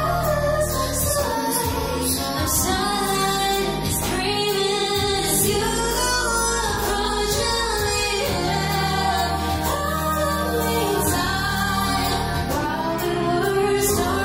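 Female-sung pop ballad: a woman's voice singing a melody over a backing track with steady bass notes and light, regular percussion ticks. It is mixed as 8D audio, panned to move around the listener's head.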